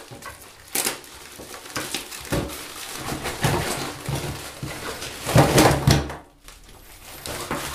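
Plastic padded mailer crinkling as it is tipped up and a heap of small cardboard boxes sliding out and knocking onto a wooden tabletop, in several irregular clattering bursts with the loudest about five and a half seconds in.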